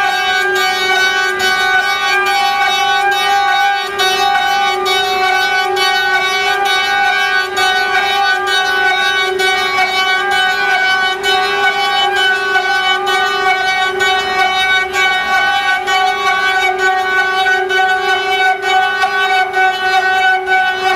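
Six-spindle CNC faucet peeling machine running, its spindles giving a steady high-pitched whine made of several held tones, with faint irregular ticks over it as the cutters work the brass faucet castings.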